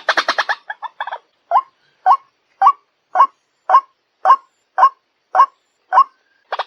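White-breasted waterhen (ruak-ruak) calling: a fast run of harsh repeated notes breaks off under a second in, followed by a slow series of about ten single notes, roughly two a second, before the fast calling starts again at the end.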